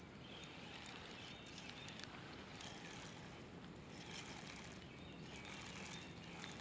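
Faint, steady outdoor background noise with a few soft ticks.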